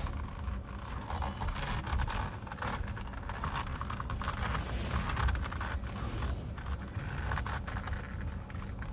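Scraping and rustling with many small sharp clicks, over a steady low rumble.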